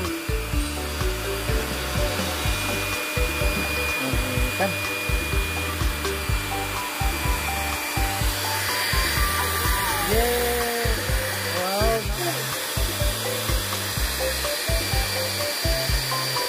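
Background music with a steady bass beat and a stepped melody, over a steady hiss from a hair dryer blowing on a freshly bathed dog.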